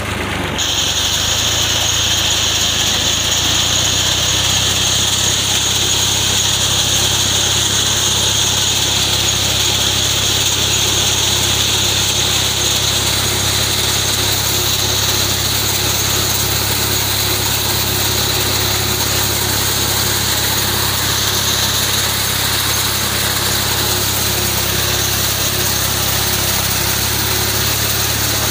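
Fiat 480 tractor's three-cylinder diesel engine running steadily under load while its front-mounted reaper cuts a standing fodder crop, with a steady high-pitched buzz from the cutter bar over the low engine hum.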